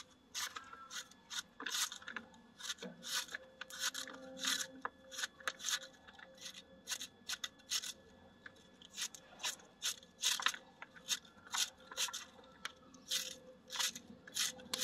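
Kitchen knife slicing through a hand-held head of raw green cabbage, shredding it: a quick run of crisp cuts, about two or three a second, thinning out briefly near the middle.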